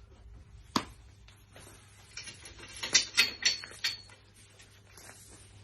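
Hands working on a stripped Volkswagen Beetle door: a single sharp knock, then a quick run of clicks, scrapes and short high squeaks as parts are handled and pulled.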